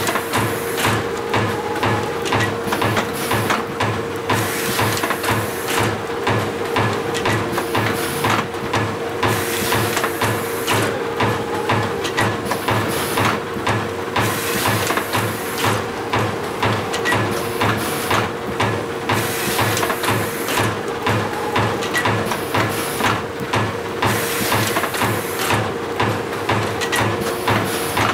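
FAS TW475 turret winder with its TU2201 roll-wrapping tape unit running continuously: a steady hum under a rhythmic beat of about two to three pulses a second, with short noisy bursts recurring every second or two.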